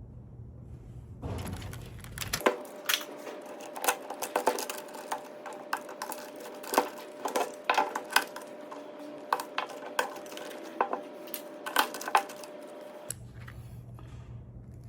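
Irregular metallic clicks and clinks of small metal parts and tools being handled while taking apart a UPS, with a faint steady hum underneath.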